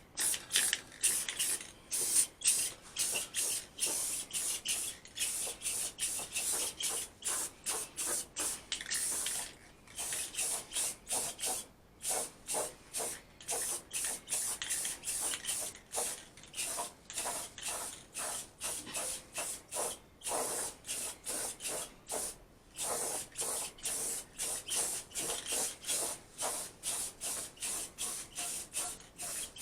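Paint being sprayed onto a vehicle fender, a hiss in quick, evenly repeated short bursts, about three a second, with a few brief pauses.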